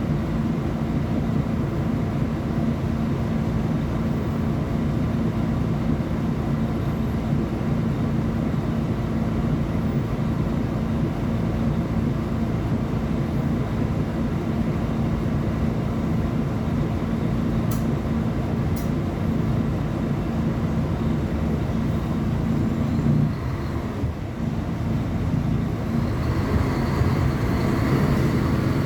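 Diesel engine of a Mercedes-Benz O500UA articulated bus running with a steady low note; about three-quarters of the way in the note drops away briefly, then the engine runs louder and higher near the end. Two faint clicks a little past halfway.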